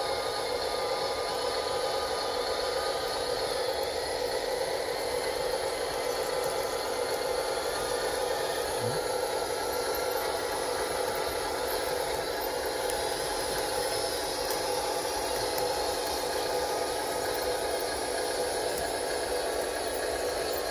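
Small electric motors of RC model excavators whining steadily while they work, with a light mechanical rattle.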